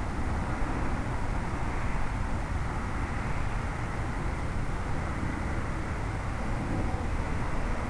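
Steady rush of wind and propeller noise on the onboard microphone of an electric radio-controlled plane in level flight, heaviest in the low rumble.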